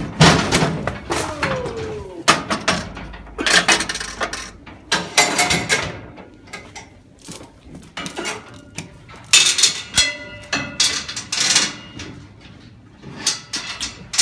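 Steel hoof-trimming chute clanking and rattling as a cow is moved into it: irregular knocks and bangs of metal gates and hanging chains, with a sharp ringing clang about ten seconds in.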